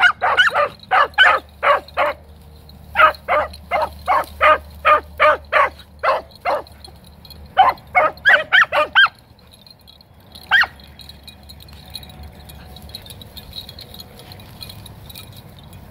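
Beagles giving tongue on a rabbit's scent: quick, short chop-mouth barks, about three a second, in bouts that break off about nine seconds in. One last bark comes a second or so later, as the line goes cold where the rabbit jumped aside.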